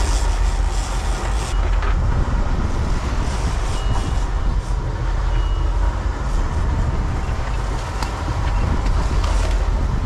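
Steady rumble of wind buffeting an action camera's microphone over the sportfishing boat's running engine and water splashing at the stern.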